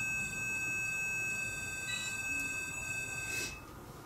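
Ghost-hunting sensor device going off with a steady, high electronic tone that cuts off about three and a half seconds in.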